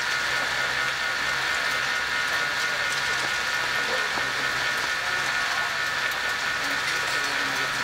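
Yakitori skewers sizzling on a grill, a steady crackling hiss, over a steady whine and low hum.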